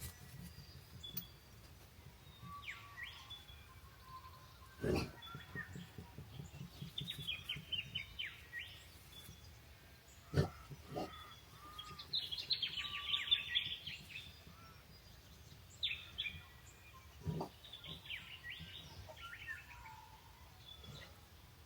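Wild birds chirping and singing in short bursts over a quiet outdoor background, the busiest run of chirps a little past halfway. A few dull low thuds stand out among them, one about a quarter of the way in, two around halfway and one about three-quarters through.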